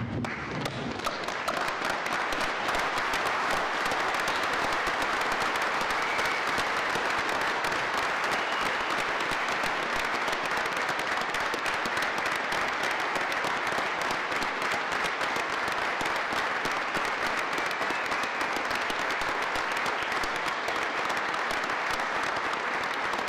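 A large audience applauding in a hall, a dense, steady mass of clapping. It swells over the first couple of seconds and then holds at full strength.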